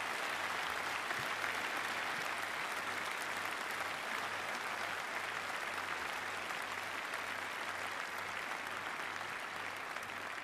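A large audience applauding steadily, the clapping beginning to die away near the end.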